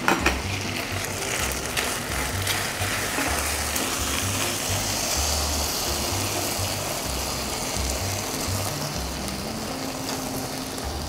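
Background music with a bass line. Just after the start, a couple of sharp clacks as a ceramic plate is set down on a stainless-steel counter.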